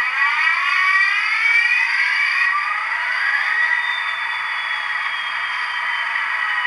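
Model locomotive sound decoder (Soundtraxx Tsunami) playing an EMD diesel engine starting up through the model's small speaker. The engine sound rises in pitch over the first couple of seconds and settles into a steady idle, with a high whine slowly falling in pitch.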